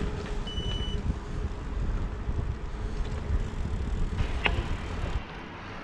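Low rumble of wind buffeting the microphone of a bicycle-mounted camera while riding, mixed with tyre noise on the path; it eases about five seconds in. A brief high-pitched tone sounds about half a second in.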